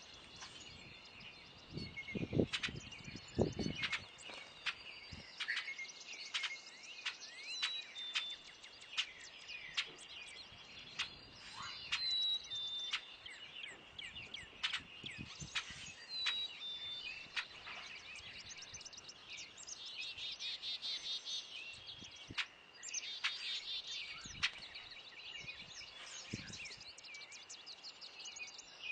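Songbirds chirping and calling in many short notes, with two quick trills about twenty and twenty-three seconds in, over a faint steady high tone. A few low thuds come a few seconds in.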